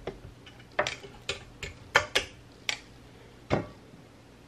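A metal fork clicking against a flip waffle maker and a ceramic plate as a cooked waffle is lifted out. It makes a string of about seven light, sharp clicks and taps, unevenly spaced.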